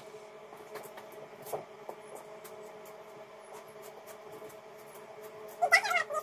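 Faint rubbing and scattered light clicks of a comb being worked through a horse's tail, over a faint steady hum. Near the end comes a short burst of high, warbling chirps.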